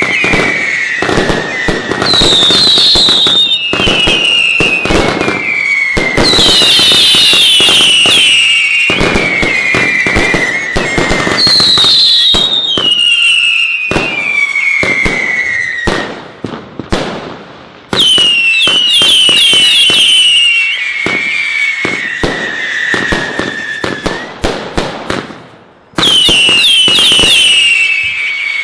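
Bonfireworks Earcatcher fireworks cake firing shot after shot of screaming whistles, each falling in pitch and overlapping the next, amid rapid pops and crackling. The barrage briefly dies away twice, about halfway through and near the end, then starts up again.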